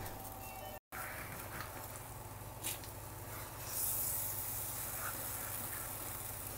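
Wooden spoon stirring thick risotto in a Dutch oven, faint soft scraping with a hiss that swells about four seconds in, over a low steady hum.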